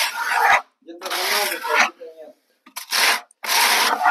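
Hand tool rubbing a sheet of flexible brick-look decorative facing to press it onto fresh adhesive on a wall: four scraping strokes, each about half a second to a second long, with short gaps.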